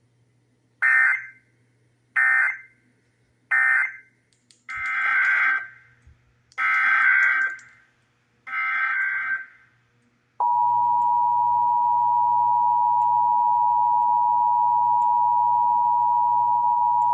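Emergency Alert System SAME data bursts: three short end-of-message bursts, then three longer header bursts. About ten seconds in, the steady two-tone EAS attention signal (853 and 960 Hz sounded together) begins.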